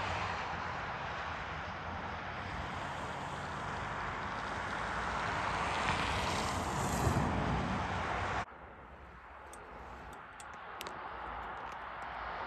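Steady rushing noise of a passing vehicle, which cuts off abruptly about eight seconds in, leaving a quieter background with a few faint ticks.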